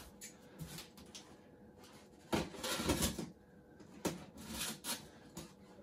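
Rubbing and scraping of a large cardboard shipping box being handled, in short bursts, with a louder, longer scrape a little over two seconds in.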